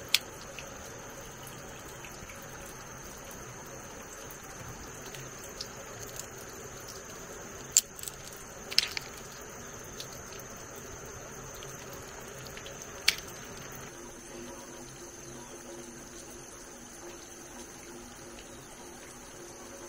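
Live crabs being rinsed by hand in a plastic basin of water and dropped into a plastic basket: light water dripping and splashing, with a few sharp clicks as crabs land on the plastic. A steady high whine runs underneath.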